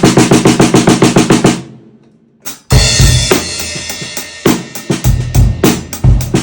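A 14x8 maple-and-mahogany stave snare drum, tuned low with a tea towel laid over the head for a fat, dry sound. It plays a fast run of strokes that dies away about a second and a half in. Then the full kit comes in with a heavy hit and a ringing cymbal, and settles into a steady beat with bass drum.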